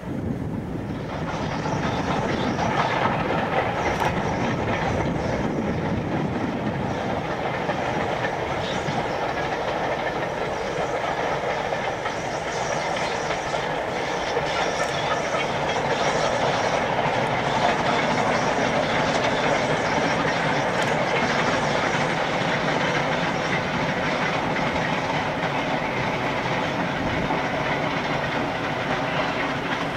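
LNER K4 No. 61994 The Great Marquess, a three-cylinder steam locomotive, working a goods train of vans past. It runs steadily, with the running noise of the train's wheels on the rails.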